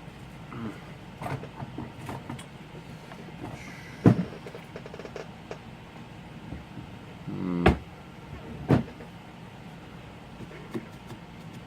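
Small tools and parts being handled on a workbench: scattered light clicks and handling noise, with three sharper knocks through the middle, the second coming just after a short buzzing scrape.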